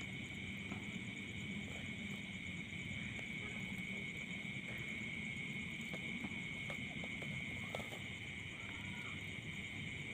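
Steady night chorus of crickets and other insects: an unbroken high trill with a fainter, fast-pulsing trill above it, and a few faint clicks.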